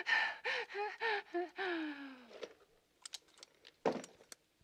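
A woman's frightened gasps and whimpers, ending in a long falling moan. Then a few light clicks and a soft knock near the end.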